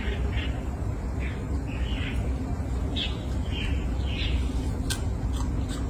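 A string of short, high chirping calls, irregularly spaced, over a steady low rumble, with a few sharp clicks near the end.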